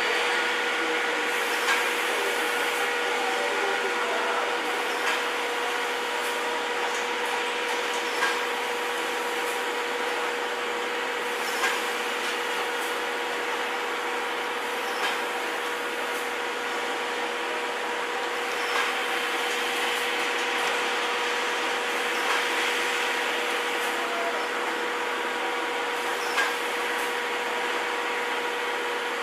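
Steam locomotive C61 20 and its 12-series coaches standing at the platform: a steady hiss with a constant whine, and a short click about every three to four seconds.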